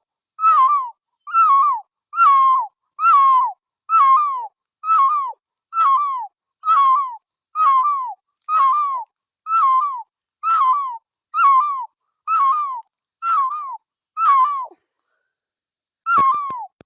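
A person vocally imitating an animal or bird call: a short, wavering high cry that falls away at its end, repeated steadily about once a second. The calls stop for about a second near the end, then start again with a few sharp clicks.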